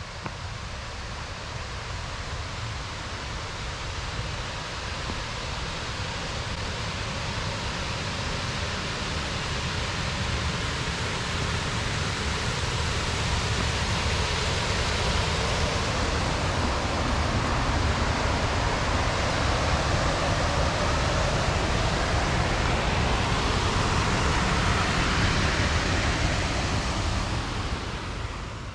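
Steady rush of a waterfall, growing gradually louder and then fading out just before the end.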